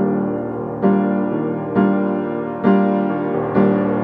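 Background music with a new chord struck about once a second.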